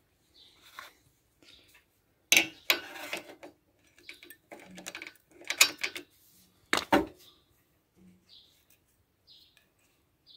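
Metal hand tools clinking and scraping on the valve adjuster of a moped's cylinder head as the adjuster's locknut is tightened: a few sharp metallic clicks with brief ringing, and faint ticks between them.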